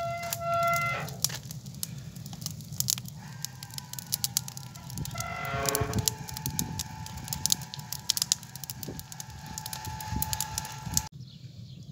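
Wood fire burning in a clay tanoor oven, crackling with many sharp pops over a low steady rumble. A few pitched calls, one near the start and a falling one around the middle, sound over it, and the sound cuts off abruptly near the end.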